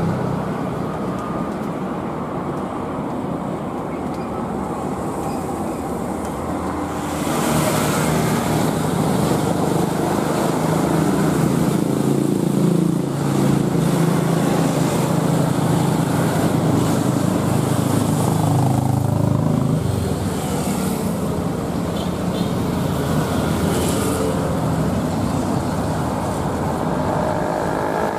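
Airliner jet engine rumble: a fainter, steady rumble from a jet climbing away, then about seven seconds in a louder rumble with hiss as a Boeing 737-800's CFM56 engines run in reverse thrust during its landing roll on a wet runway, easing off in the last part.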